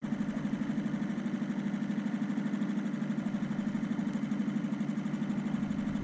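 Small outboard motor pushing an inflatable dinghy, running steadily with a fast, even putter.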